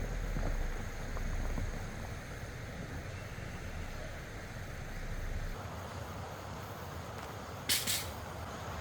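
Water rushing steadily, with low wind rumble on the microphone for the first half and a brief high hiss near the end.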